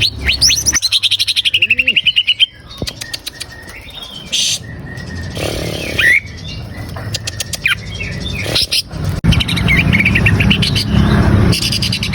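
Greater green leafbird (cucak ijo) song: rapid rattling trills of quickly repeated notes, then scattered single whistled notes, then the trilling again from about nine seconds in, with a low hum underneath.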